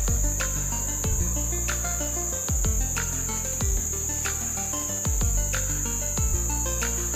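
Insects droning steadily at one high pitch, over background music with held notes and a slow, repeating beat.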